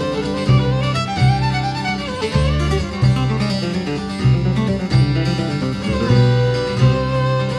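Instrumental music with acoustic guitar and fiddle in a bluegrass style, over a steady pulsing bass.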